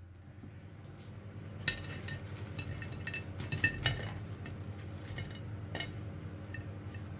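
Air fryer's stainless-steel wire mesh rack clinking against a ceramic plate as chips are tipped off it: several sharp clinks that ring briefly, over a low steady hum.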